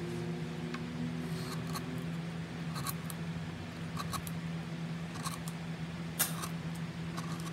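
Carving knife cutting into wood: short scraping cuts, about one or two a second, the loudest about six seconds in. A steady low hum runs underneath.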